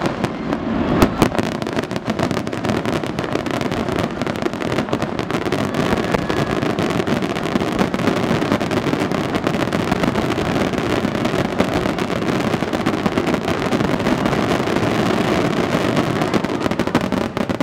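A dense barrage of fireworks, many shells bursting and crackling at once in an unbroken din of rapid reports. It dips briefly near the end.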